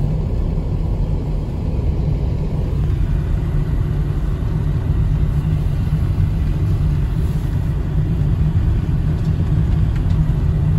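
Steady low rumble of a moving vehicle heard from inside its cabin: engine and road noise while driving on a snow-covered road.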